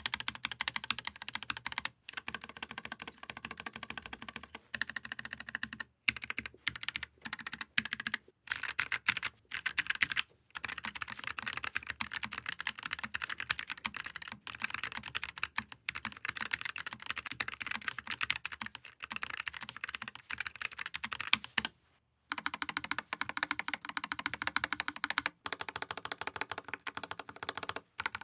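Continuous fast typing on low-profile mechanical keyboards (NuPhy Air75 V2 and Keychron K3 Max), as a typing sound test, with brief pauses. After a short break about two-thirds of the way in, the typing has a fuller, lower sound.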